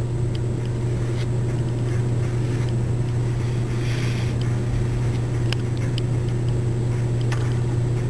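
A steady low hum throughout, with faint scrubbing of a Scotch-Brite abrasive pad on the stripped copper cable end, cleaning oxidation off the conductors. A few light clicks are heard as the cable and pad are handled.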